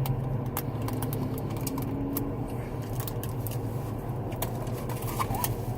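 Steady low hum of a parked car running, with scattered small clicks of eating and handling food, and one sharper click near the end.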